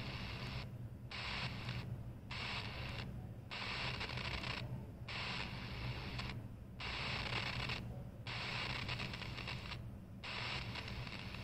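Static hiss from a CS 106 DSP radio's speaker as it is tuned up through empty channels at the top of the medium wave band in 9 kHz steps. The hiss cuts out for a moment at each step, about seven times, over a steady low hum.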